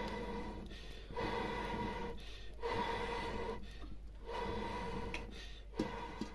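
Breath blown through a green bamboo tube into a wood fire to stoke the embers: about five long, breathy blows of about a second each, with short pauses for breath and a steady low tone through each blow. A single sharp click comes near the end.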